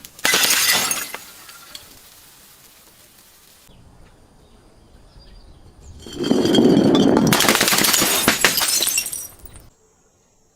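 Glass bottles shattering and crunching in two bouts: a short one about a second long at the start, then a longer one of about three seconds beginning around six seconds in.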